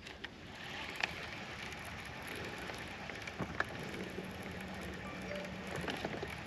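Baitcasting rod and reel being cast and slowly retrieved: a few faint clicks and taps over a quiet, even background hiss.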